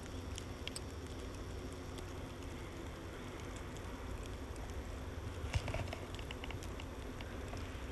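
Faint, steady wind rumble on the microphone in a blizzard, with scattered light ticks and a short cluster of ticks about five and a half seconds in.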